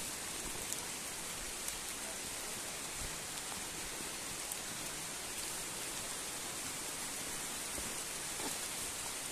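Steady hiss of falling water with a few faint ticks.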